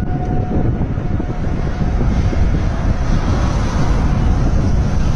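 Strong storm wind buffeting the microphone: a loud, unsteady low rumble with no let-up.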